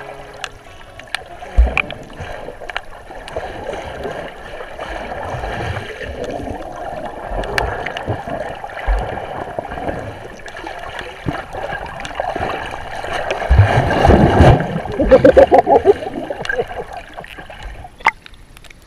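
Sea water sloshing and bubbling around an underwater action camera, muffled, with scattered knocks and thumps; the gurgling grows louder about two-thirds of the way through.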